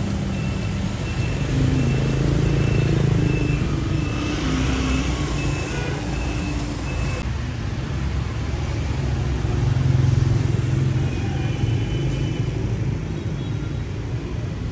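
Street traffic: the steady rumble of passing motorbike and car engines, swelling twice. A short high beep repeats nearly twice a second and stops about seven seconds in.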